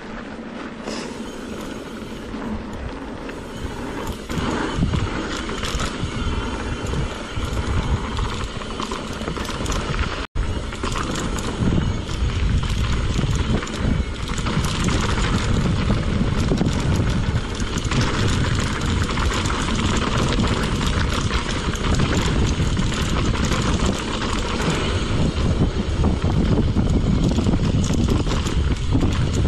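Mountain bike riding down a rough dirt trail: a continuous clatter and rattle of the bike over the ground, with heavy wind rumble on the microphone that grows stronger partway through. A split-second dropout about ten seconds in.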